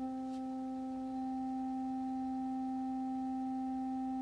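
Steady middle-C sine tone (261 Hz) from a tone-generator app played through an iPad's speakers, with faint higher overtones. It starts from one speaker and gets a little louder about a second in, when the second speaker joins on the same note: constructive interference of two in-phase tones.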